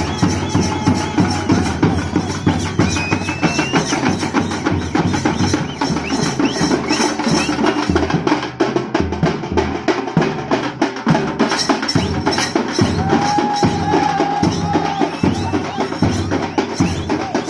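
Music with fast, dense drumming throughout, over which a high melody line wavers in and out, with one held note about two-thirds of the way through.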